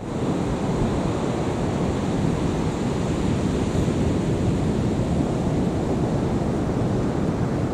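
Wind buffeting the camera microphone: a steady, unevenly rumbling rush, heaviest at the low end.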